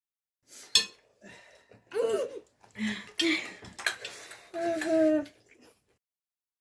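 Cutlery and bowls clinking at a meal, with one sharp clink about three-quarters of a second in, mixed with short wordless vocal sounds.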